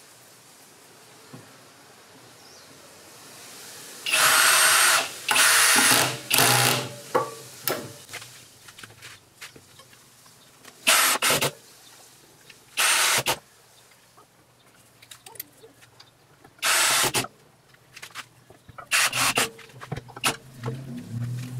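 Kobalt cordless drill driving screws through hairpin-leg brackets into a wooden tabletop, in short bursts of the motor's whine. Three runs come close together about four seconds in, then single runs every few seconds.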